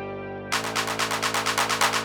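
Electronic techno music: a held synth chord, then about half a second in a fast roll of noisy percussion hits that speeds up as a build-up.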